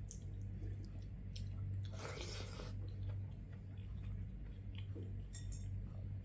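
A person chewing and eating a meal of fried fish, curry and rice, with small wet mouth clicks and a louder smack about two seconds in, over a steady low hum.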